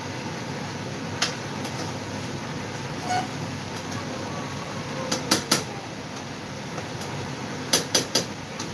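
A cooking utensil tapping and knocking against a stainless steel saucepan: single taps early on, then two quick runs of three knocks, about five and eight seconds in, over a steady background hiss.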